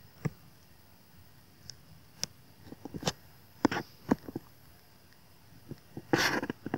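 Stylus tapping and clicking on a tablet's screen during handwriting: scattered sharp light clicks, with a short breathy rustle about six seconds in.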